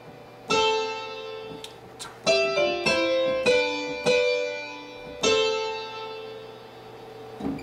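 Piano sound from a Roland Fantom keyboard workstation: a slow right-hand phrase of single notes and two-note pairs, each struck and left to ring and fade.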